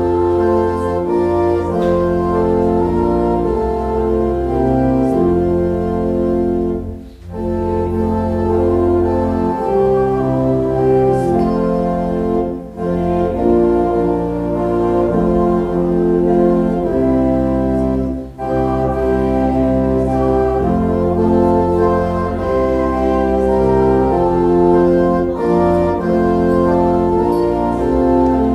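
Church organ playing a slow piece in sustained chords over a deep bass, the chords changing every second or two, with short breaks between phrases about every five or six seconds.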